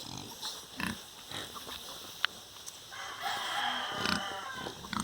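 Pigs grunting in short bursts, with one sharp click about two seconds in and a longer, higher-pitched call through the second half.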